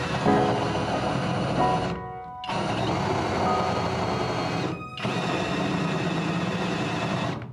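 Cordless drill driving a hole saw through a wooden boat hull, cutting the hole for the engine's raw-water cooling intake. The drill runs under load, stops briefly about two seconds in, and stops again briefly about five seconds in.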